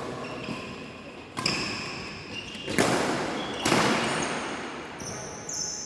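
Badminton play in an echoing sports hall: several sharp hits about a second apart, racket strikes on the shuttlecock, with short high squeaks from shoes on the court floor.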